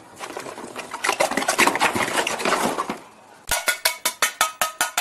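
Rustling and scratching on the crumpled fabric of a collapsible paddling pool as bulldog puppies scramble around in it, a dense run of clicks and rustles. After a short lull about three seconds in, a fast even run of short ringing clinks begins, about six a second.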